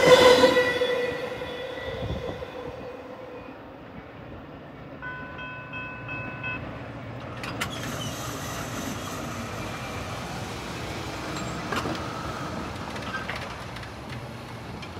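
Metra bilevel commuter train passing close by, with a loud steady ringing tone from the steel wheels on the rails. The sound then fades over a few seconds to a lower rumble as the train moves off down the track.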